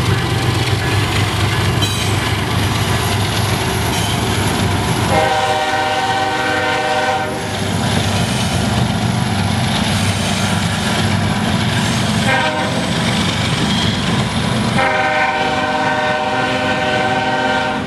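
Nathan K5HL five-chime air horn on a GE Evolution series locomotive sounding a long blast, a brief blast, then another long blast, over the steady rumble and wheel clatter of a passing train.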